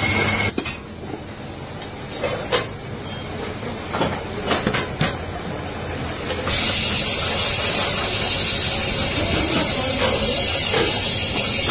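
Aluminium kadhai spinning on a lathe as a hand-held cutting tool shaves its outer surface: a loud, steady hiss from about halfway through. Before it comes a quieter stretch with a few sharp metal clinks.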